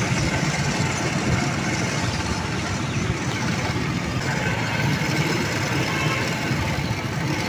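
Steady outdoor street noise: a continuous low rumble with hiss, no distinct events.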